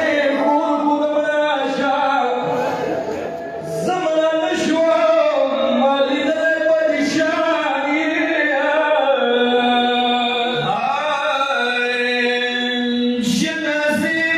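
A man chanting a slow, melodic mourning recitation without instruments, holding long notes between gliding phrases.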